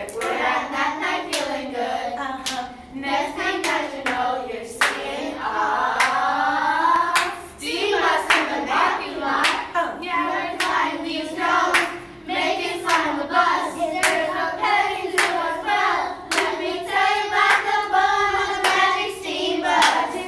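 A group of children and adults singing a song together, clapping their hands to a steady beat.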